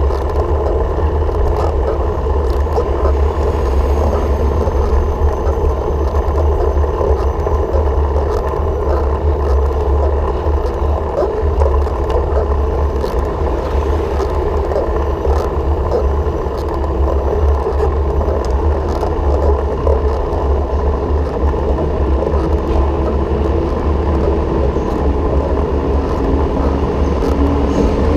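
Steady rush of wind on the microphone and road noise from a moving ride, with scattered light ticks and rattles. A low hum comes in and rises slightly near the end.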